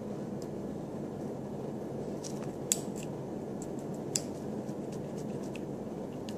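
Small screwdriver tightening the negative post screw on a Genesis rebuildable atomizer: light metallic clicks and ticks, two of them sharper near the middle, over a steady low room hum.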